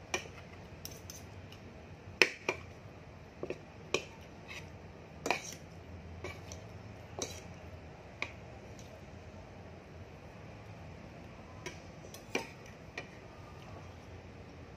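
A metal spoon clinking against a plate as food is scooped, in scattered short, sharp clinks with a pause of a few seconds in the second half.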